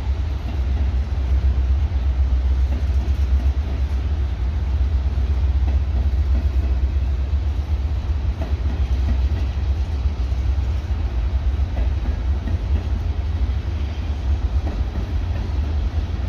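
CN freight train rolling past, a steady, heavy low rumble of the cars on the rails.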